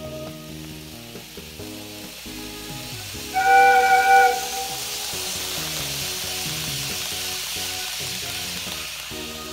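Steady hiss of an N-scale TOMIX model train rolling past close by on curved track, over background music. A loud horn-like tone sounds for about a second as the locomotive comes into view.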